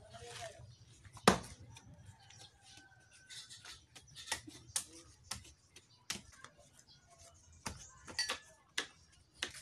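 Knife chopping into a young jackfruit: irregular sharp cuts, roughly one or two a second, the loudest a little over a second in.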